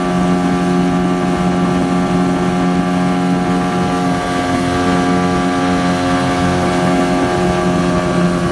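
Towing motorboat's engine running steadily at speed, a constant drone, while the boat pulls a banana boat.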